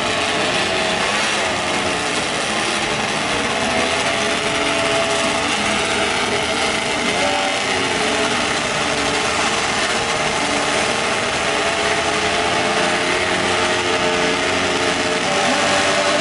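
High-revving drag-racing engines running at the starting line while the machines are staged. The drone is steady, with a slightly wavering pitch.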